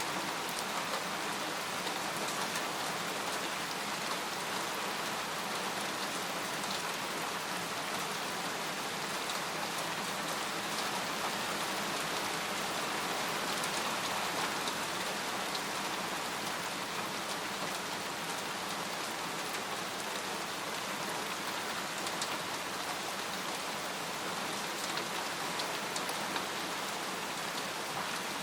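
Steady rain falling on a tent, an even hiss with single drops ticking here and there.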